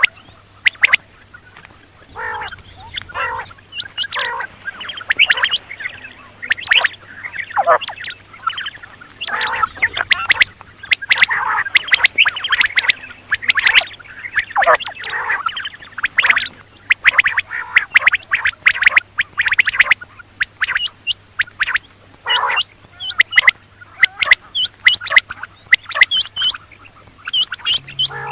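Quail calling over and over, a dense run of short, harsh calls and sharp clicks with hardly a pause.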